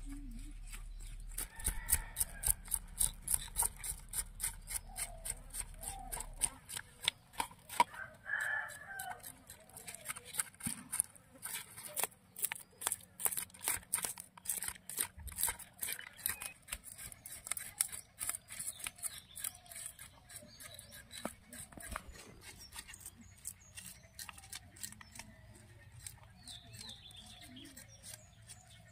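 Chickens clucking with a rooster crowing, over a steady run of sharp clicking or tapping strokes, about two a second.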